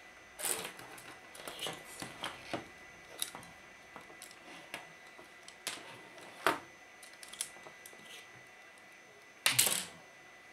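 Irregular light clicks, taps and knocks of circuit boards and wiring being handled on a workbench, with a louder short clatter near the end.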